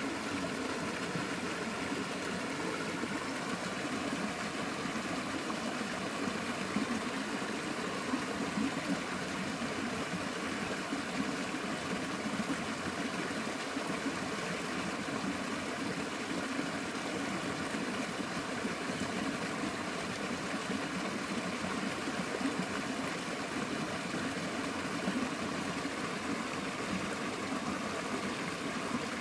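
A small stream cascade spilling over rocks into a pool: a steady rush of flowing water.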